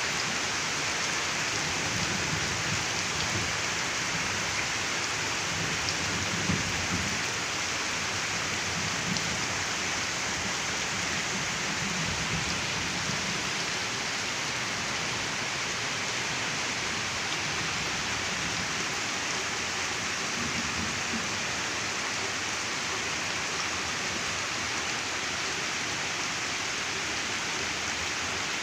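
Heavy rain falling steadily, with low gusty rumbles of strong wind in the first half.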